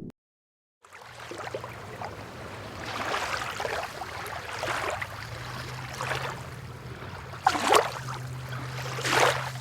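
A motorboat under way: water rushing and splashing over a steady low motor hum, starting about a second in, with louder splashes twice near the end.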